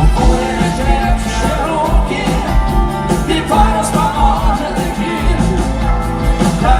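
Rock music: a full band playing with a singing voice carrying the melody over a steady beat.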